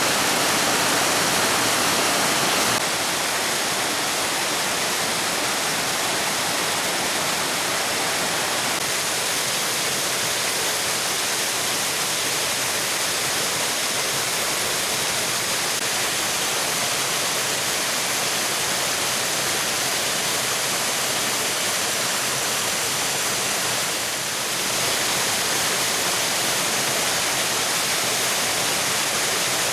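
Wide river waterfall rushing steadily, water pouring over a broad ledge. The rush eases slightly about three seconds in and dips briefly near the end.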